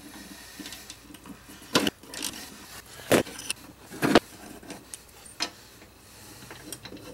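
A handful of sharp metal clicks and knocks from a socket ratchet and the mower's blade bolts as the bolts are loosened and removed, the loudest about four seconds in.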